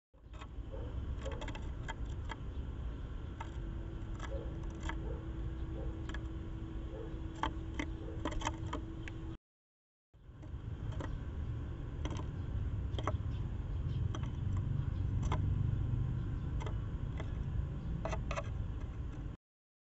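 Eurasian tree sparrow pecking seeds on a wooden feeder board: scattered sharp taps and clicks over a steady low rumble. There are two stretches with a brief silence between them.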